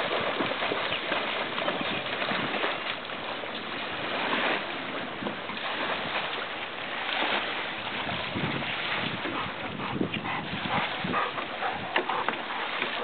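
A Chesapeake Bay Retriever splashing through shallow river water and pushing through reeds: a steady rush of splashing and rustling, with a few sharp clicks and knocks near the end.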